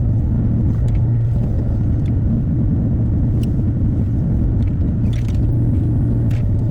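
Hyundai HX60A mini excavator's diesel engine running at a steady speed, with a low hum and a few faint ticks of work noise.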